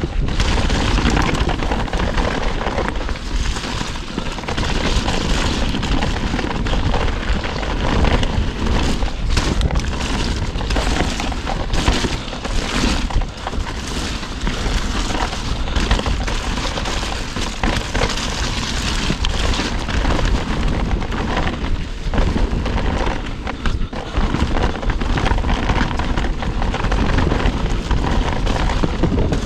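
Mountain bike riding fast down a dirt trail: tyres rumbling over the ground and the bike rattling with many short knocks over bumps, with wind buffeting the handlebar-mounted camera's microphone.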